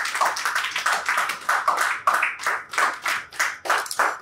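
A group of people clapping together in a steady rhythm, about four claps a second.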